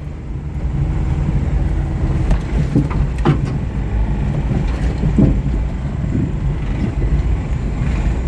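A worn car engine, which the owner says has a rod knock, running under load as the car is driven over rough ground. Its low rumble is broken by thumps and rattles from the body and suspension, the clearest about three and five seconds in.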